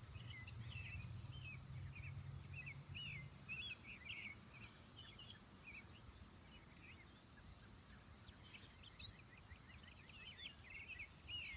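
Faint birdsong: many quick chirps and twitters from several birds. They come thicker in the last few seconds. A low steady hum fades out about three and a half seconds in.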